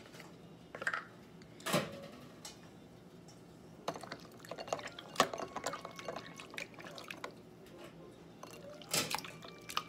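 Raw fish fillets being mixed by hand in a bowl of seasoning: small wet clicks and squelches, thickest in the second half, with a couple of sharper knocks.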